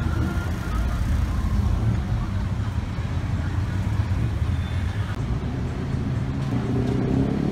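Street traffic noise: a steady rumble of car engines in slow-moving city traffic.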